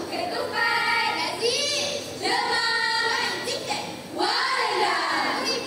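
A choral-speaking group of schoolgirls reciting in unison in a chanted, sung style, in about three phrases separated by short breaks.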